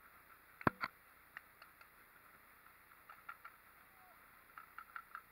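A sharp knock about two-thirds of a second in, then a second just after it, followed by scattered fainter clicks and pops, with a quick cluster of four or five near the end.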